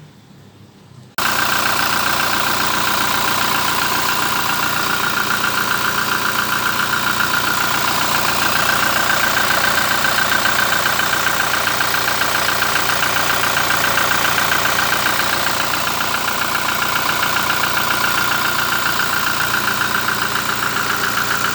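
A machine starts abruptly about a second in and runs steadily and loudly, with a strong whirring tone over a dense, fast rattle.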